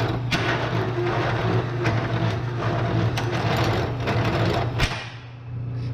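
Bridgeport milling machine driving a 2.5-inch hole saw with missing teeth into a steel tube: a steady motor hum under a rapid chatter of knocks as the teeth catch. Near the end comes a sharp crack and the cutting noise stops, as the hole saw breaks.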